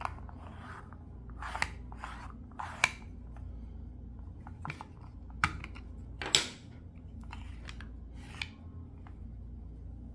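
Plastic clicks and short scrapes as the pocket magnifier's battery cover is slid along its grooves and pulled off the black plastic case: a handful of sharp clicks, the loudest about six and a half seconds in, over a low steady hum.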